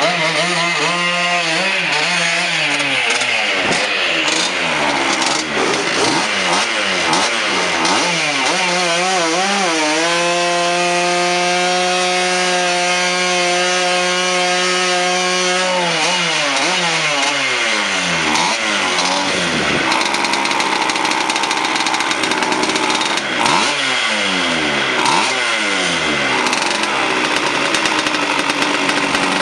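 A classic two-stroke scooter engine revved hard during a stationary burnout, its rear tyre spinning on the concrete. The revs waver up and down at first, are held high and steady for about six seconds, then drop away, and are blipped up and down again near the end.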